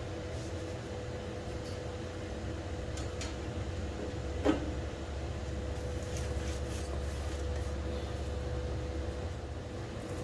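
Steady low mechanical hum with a faint steady tone, and a single sharp knock about four and a half seconds in.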